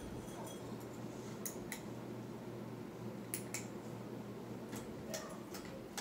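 Pull-chain speed switch of a Hampton Bay Cameron II Plus ceiling fan clicking as the chain is pulled: several sharp clicks, mostly in close pairs about a second and a half apart. Under them runs the steady low hum of the fan's motor.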